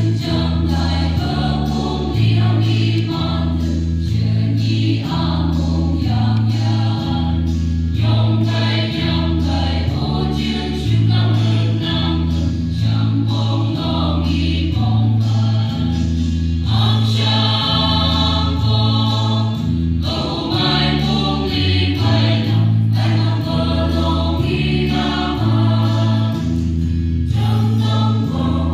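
A mixed choir of men and women singing, with a low bass line that steps back and forth between two notes about once a second beneath the voices.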